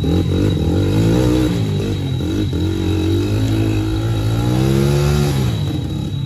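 Dirt bike engine revving up and down in repeated surges as it climbs a rutted mud slope, over a steadier, lower engine note running underneath.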